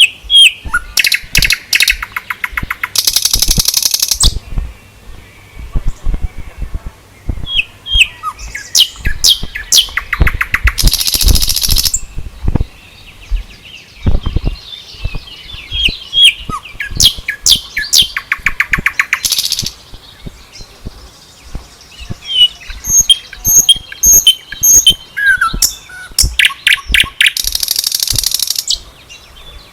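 Birds singing: phrases of quick chirps, each ending in a loud harsh buzzy trill, repeating about every eight seconds, with scattered low knocks.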